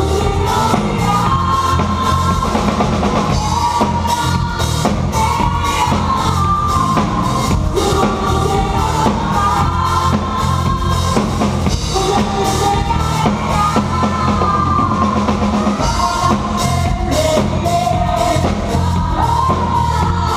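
Music with a drum kit playing a steady beat: bass drum and snare under a melody line.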